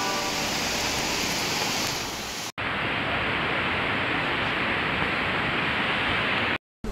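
Steady rush of a mountain stream tumbling over boulders. About two and a half seconds in it cuts off sharply and a similar, slightly duller rushing noise takes over, breaking off abruptly just before the end.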